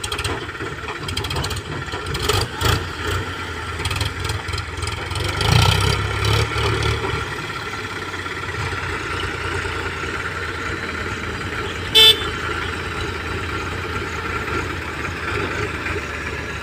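Tractor engine running steadily, swelling in level about five to seven seconds in. A vehicle horn gives one short toot about twelve seconds in.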